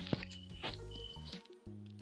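Background music with sustained low bass notes that change every half second or so, and short sharp clicks over them.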